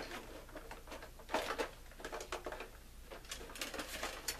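Quiet scattered plastic clicks and rattles of a Nerf Mega Centurion blaster being handled, as its priming slide is pulled back to free the magazine.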